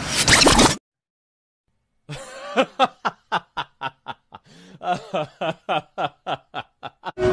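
A snickering laugh, a quick run of short "heh-heh" pulses about four a second, starting about two seconds in after a sudden cut to dead silence.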